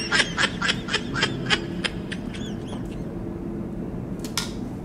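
Person laughing in a run of short, high-pitched giggles, about four a second, that fade out about two and a half seconds in. A faint click near the end.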